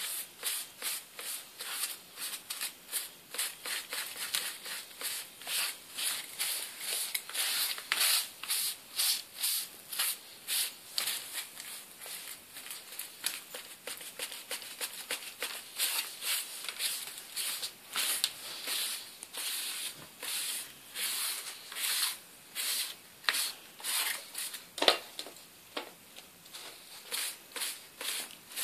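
A small sponge scrubbed and dabbed over cut-paper feathers in quick repeated strokes, a dry scratchy rubbing about two to three times a second. One sharper knock near the end.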